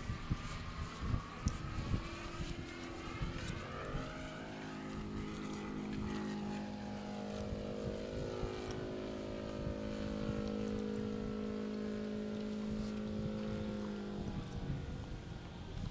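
Radio-controlled aerobatic model airplane flying overhead: its motor and propeller give a steady-pitched hum that grows clear about four seconds in and fades near the end. Gusts of wind buffet the microphone in the first couple of seconds.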